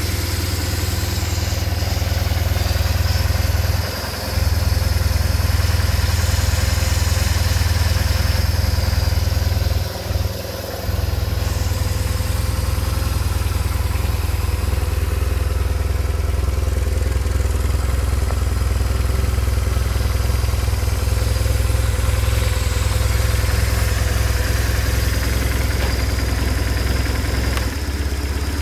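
BMW R 1150 R's air/oil-cooled boxer twin idling steadily, with two brief drops in the low rumble about four and ten seconds in.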